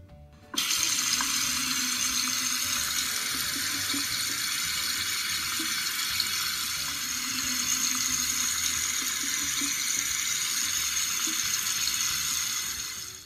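Tap water running steadily into a sink, starting abruptly about half a second in and stopping near the end.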